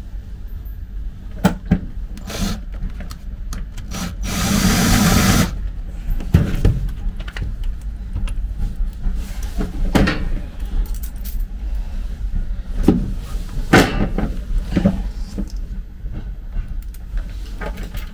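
Footsteps and scattered knocks while walking, over a steady low rumble; about four seconds in, a loud burst of hissing compressed air lasts about a second.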